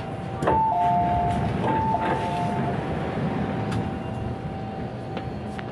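A two-tone electronic chime sounds twice, each time as two overlapping notes, in the first three seconds. Underneath it runs the steady rumble and thin whine of an MTR Island Line M-Train, with a few sharp clicks.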